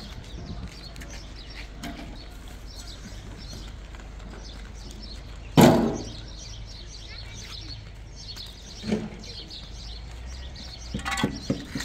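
Small birds chirping, with one loud metal clank from the wheelbarrow and its shovel a little past halfway, then a softer knock and a few clicks near the end.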